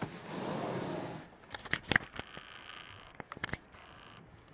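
Handling noise as an Asus G46VW laptop is moved by hand: a rustling scrape for about a second, then a few sharp clicks and taps of its plastic casing.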